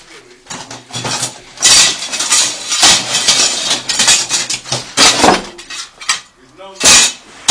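Metal tools clattering and scraping in quick, dense bursts, with one sharp loud knock near the end.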